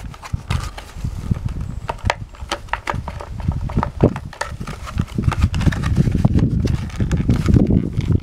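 Plastic blister packaging of a small toy horse being crinkled, clicked and picked at by fingers as it is worked open, with irregular dull bumps of handling.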